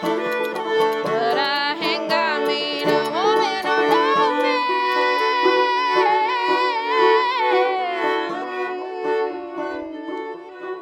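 Fiddle and banjo playing an instrumental break in a folk tune, the fiddle carrying the melody with sliding, wavering notes over steady lower notes. It gets quieter near the end.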